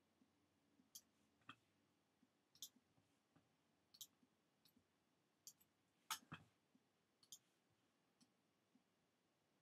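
Faint, scattered clicks of a computer mouse, about ten in all, the loudest about six seconds in, over near-silent room tone.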